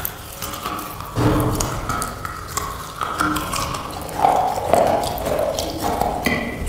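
Close-miked biting and chewing of black slate (slate pencil pieces), a run of sharp crunches and cracks as the brittle slate breaks between the teeth, heaviest about a second in and again around four to five seconds in.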